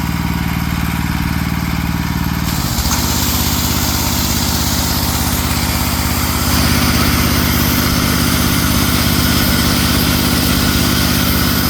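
Pressure washer's engine running steadily; about two and a half seconds in, a loud hiss of high-pressure water spraying joins it and the engine note changes.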